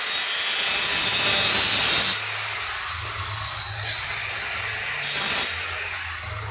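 Handheld electric tile saw cutting a ceramic floor tile around the opening for a bathroom floor drain: a loud grinding cut for about two seconds, then lighter cutting, with another short loud cut about five seconds in.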